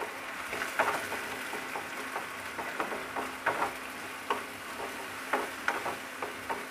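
Onions and ginger-garlic-chilli paste sizzling in hot mustard oil in a kadai, stirred with a wooden spatula that scrapes and knocks against the pan in irregular strokes.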